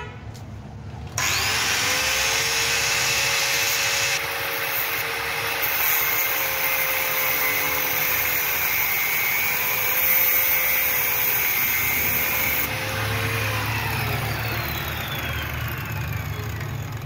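Electric power tool motor switched on, spinning up with a rising whine, running steadily for about twelve seconds, then winding down with a falling pitch.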